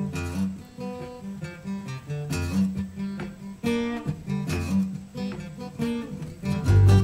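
Acoustic guitars and an acoustic bass guitar playing an instrumental intro in 5/4 time, with plucked and strummed notes. The low bass notes get much louder near the end.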